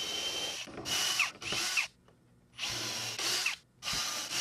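Milwaukee cordless drill with an extension drilling pilot holes through a template into HDPE plastic blocks. It runs in about five short bursts, each with a steady high whine, stopping between holes.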